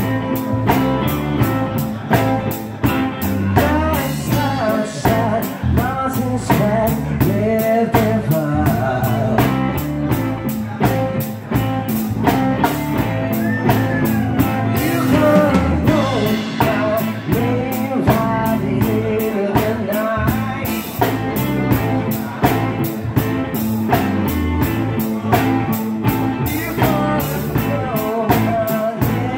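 Live band playing: electric guitar, electric bass and drum kit with a man singing over them.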